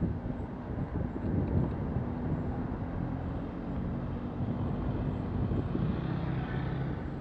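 Steady road and wind rumble from riding a bicycle, with a motorcycle engine growing louder and passing close by near the end.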